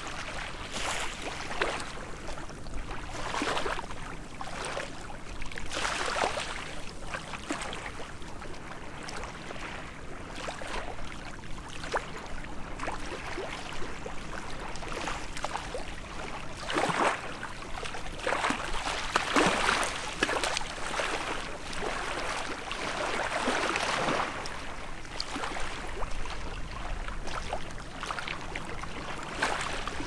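Small waves of the calm Thermaic Gulf lapping at the shore, an irregular splash every couple of seconds over a steady wash of water, a little louder about halfway through.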